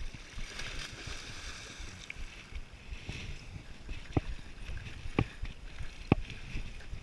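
Stand-up paddleboard paddle strokes: water swishing under a low rumble of wind on the microphone, with three sharp clicks about a second apart in the second half.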